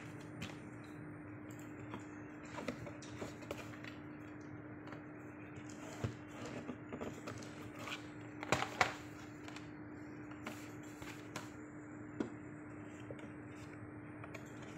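Thick cardboard board books being handled: scattered light taps and knocks as pages are turned and books are picked up and set down, the loudest cluster about eight and a half seconds in, over a steady low hum.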